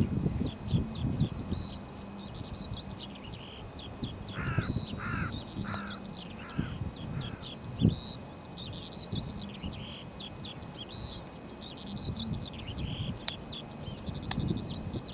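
Songbirds chirping and trilling throughout, with a larger bird giving about five harsh calls in a row from a little after four seconds in. A low, uneven rumble runs underneath, with a single sharp click near the middle.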